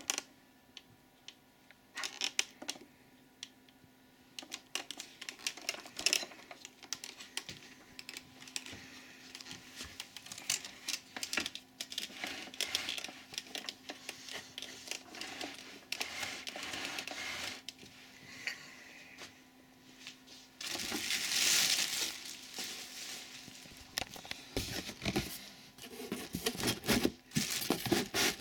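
Plastic packaging film crinkling and rustling as vacuum cleaner parts are unwrapped and handled, with scattered clicks and knocks of hard plastic parts and cardboard. The rustling is densest and loudest for a couple of seconds about two-thirds of the way through.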